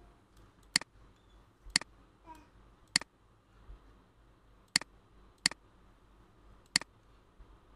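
Computer mouse clicking: about six sharp single clicks, spaced irregularly.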